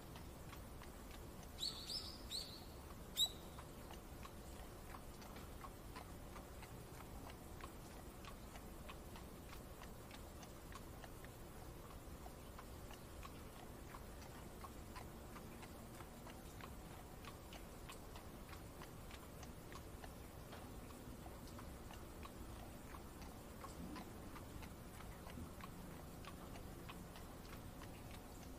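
Soft, steady rain ambience with faint, regular ticking throughout. A few short, high bird chirps come about two to three seconds in.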